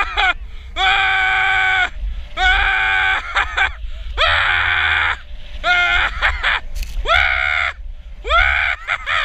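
A person yelling in long, held whoops while riding down deep snow, about seven in a row, each roughly a second long with short gaps between, over a steady low rumble of wind on the microphone.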